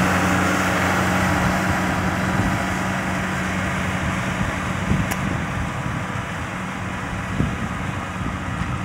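Diesel engine of a Kubota M6040 SU tractor running steadily with a low hum, growing gradually fainter.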